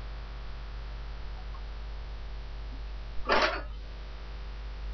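Steady low electrical hum with microphone hiss, broken by one brief noisy burst about three seconds in.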